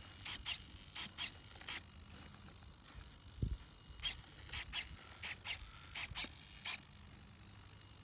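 Small hobby servo motors in a cardboard robot whirring in short bursts as they turn its head and open and close its jaw, about five bursts in the first two seconds and about eight more between four and seven seconds in. A single low thump comes about three and a half seconds in.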